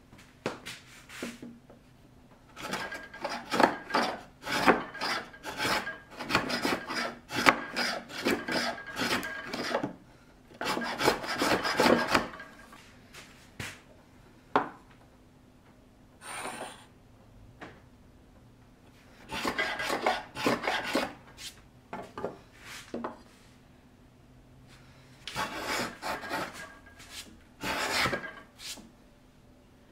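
Small hand plane taking thin shavings off a piece of hardwood stock, in several runs of quick short strokes with quiet pauses between: the wood is being shaved a little at a time to sneak up on a tight fit.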